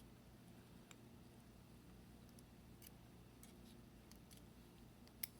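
Near silence with a few faint clicks of small metal lock parts being handled, and one sharper click near the end.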